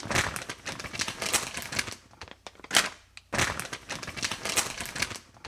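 Packaging of a boxed slime kit being handled, a rapid run of small crackles and clicks with a couple of brief pauses and one sharper click about halfway through.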